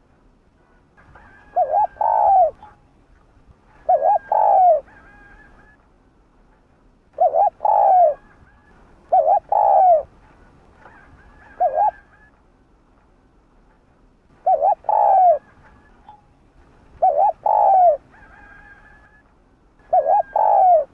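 Spotted dove cooing over and over: each phrase is a couple of quick notes followed by a longer arching coo, repeated about every two to three seconds.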